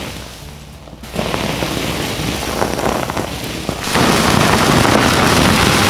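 Burning magnesium under a spray of water from a garden hose: dense hissing and sizzling with many sharp crackling pops. It starts quieter, picks up about a second in and is loudest from about four seconds in. The water makes the magnesium fire flare and throw sparks rather than go out.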